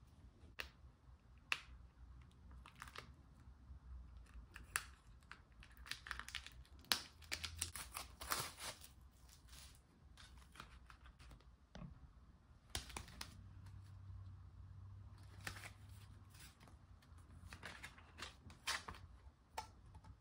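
Album packaging and paper inserts being handled and unwrapped: irregular rustling with scattered sharp taps and clicks, busiest in a few short clusters.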